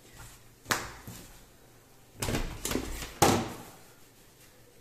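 Handling knocks on a work table: a sharp tap under a second in, a short rustling clatter about two seconds in, and a louder knock just after three seconds.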